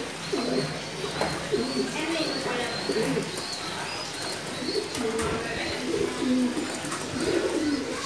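Domestic pigeons cooing again and again, low warbling calls that overlap one another.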